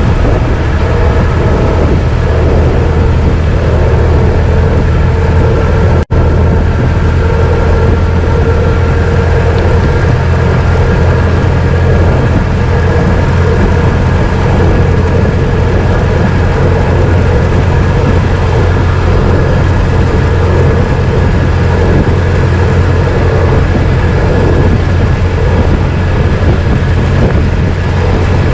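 A 1926 Ford Model T's four-cylinder engine running steadily as the car drives, a loud, even low drone. A split-second gap cuts the sound about six seconds in.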